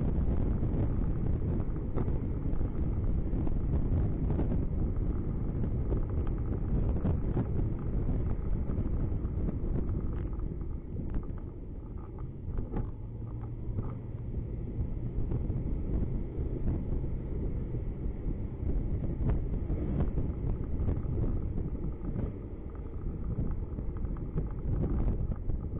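A car driving on city streets, heard from inside the cabin: a steady low rumble of engine and tyre noise with wind buffeting the microphone, a little quieter from about ten seconds in.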